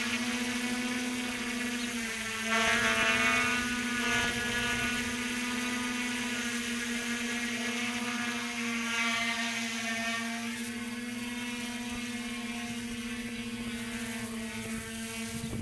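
Quadcopter's electric motors and propellers whining steadily in flight, one held pitch with a harmonic buzz, growing somewhat louder about two and a half seconds in.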